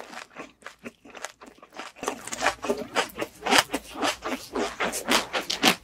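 A person chewing a mouthful of food close to the microphone, with rapid clicky mouth sounds that are faint at first and much busier from about two seconds in.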